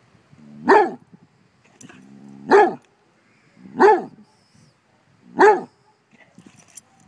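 Basset hound barking: four loud single barks about a second and a half apart, the first two led in by a short low growl.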